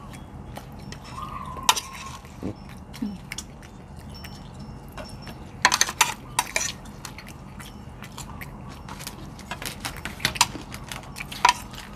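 Metal cutlery clinking and scraping against plates during a meal: a sharp clink about two seconds in, a quick cluster of clinks around the middle, and a few more near the end.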